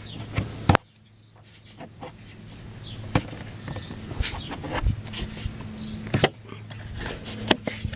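Scattered clicks, taps and knocks of parts and hand tools being handled while working on a small engine, over a steady low hum. The sound cuts out abruptly about a second in, then the hum and handling noises return.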